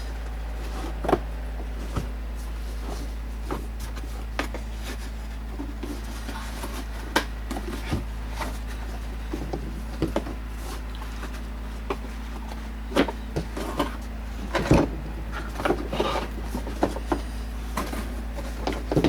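Plastic HVAC heater box housing from a Dodge Ram being pulled apart into its two halves by hand: scattered clicks, knocks and rubbing of plastic parts, busiest about two-thirds of the way in. A steady low hum runs underneath.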